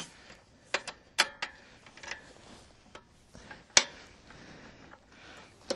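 Metal parts and hand tools clicking and clinking as the motor-dog's chain-drive sprocket assembly is taken apart and refitted by hand: a handful of irregular sharp clicks, the loudest a little before four seconds in.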